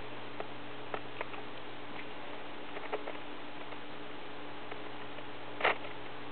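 Perro de Presa Canario nosing close to the floor: scattered light clicks and taps, then one louder short sniff near the end.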